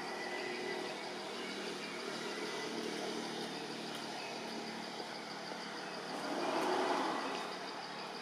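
Steady outdoor background noise with a high, fast pulsing trill running through it, and a swell of louder noise about six to seven seconds in.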